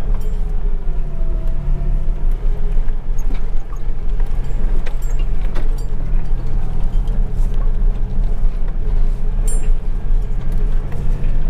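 Truck driving, heard from inside the cab: steady engine and road rumble with a wavering whine, and small rattles and clicks from loose things jostling.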